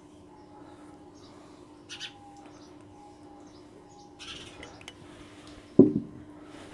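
Faint scrapes and hisses of a plastic syringe being worked in the neck of a glass bottle, over a steady low hum. One short, loud sound comes about six seconds in.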